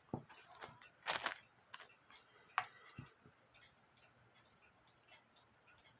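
Light clicks and taps of small metal music-box parts being handled, several in the first three seconds with a short squeak and a dull knock, then only faint ticks.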